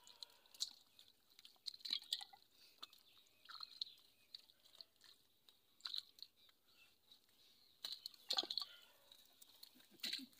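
Faint, scattered wet splashes and squelches as fish wriggle through shallow muddy water sliding into a hole trap, with a louder cluster of splashing a little past the middle.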